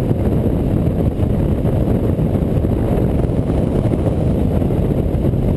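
Motorcycle on the move, heard through a rider-mounted action camera: a steady low rumble of wind buffeting the microphone mixed with the engine running.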